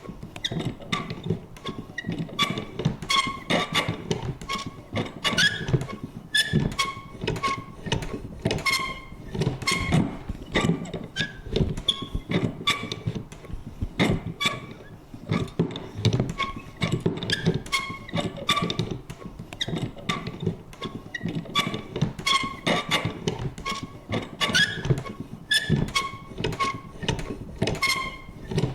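Vintage paper punch clicking and thunking over and over, several strokes a second at an uneven pace, with short high creaks among the strokes.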